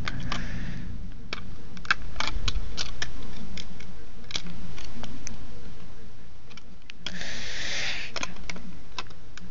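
LEGO bricks clicking and scraping as hands press and wiggle a piece into a tight, exactly aligned fit: irregular small plastic clicks, with short rustles near the start and about seven seconds in, over a steady low hum.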